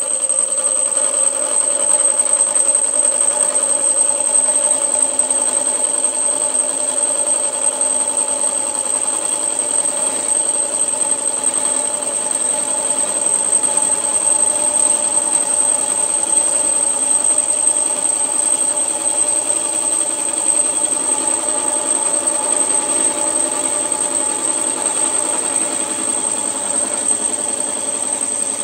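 Milling machine running a gear cutter through a gear blank held in a dividing head, cutting a tooth space at half depth: a steady motor hum with a constant high whine.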